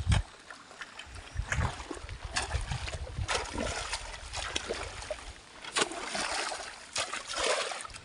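Hand hoes chopping into waterlogged paddy-field mud, each stroke a wet smack and splash, coming irregularly about once a second.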